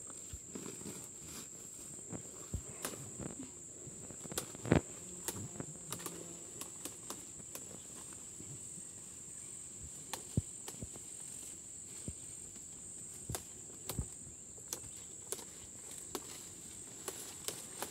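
Steady high-pitched chirring of crickets or similar insects, with scattered sharp snaps and rustles as leafy stalks are broken off by hand; the loudest snap comes about five seconds in.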